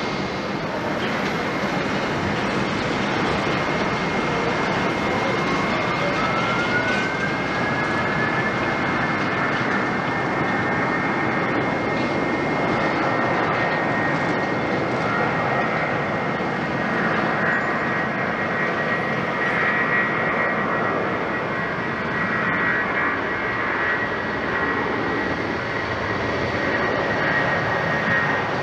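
Airbus A330-300 jet engines spooling up to takeoff thrust: a whine rises over about three seconds, starting about five seconds in, then holds steady over a continuous engine roar as the airliner rolls down the runway.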